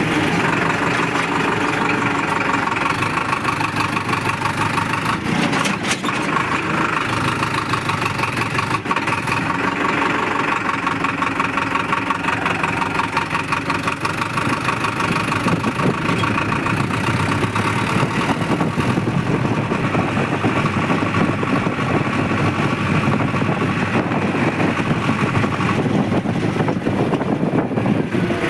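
A vehicle's engine running steadily and evenly while on the move, with a fast regular pulse.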